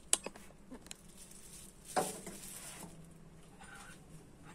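Clear plastic wrapping crinkling in a hand: a few sharp crackles at the start, faint scattered ticks, and one brief rustle about two seconds in.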